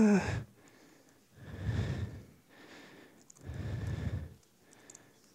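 A man breathing close to a microphone: two slow breaths about two seconds apart, each lasting about a second and puffing on the mic.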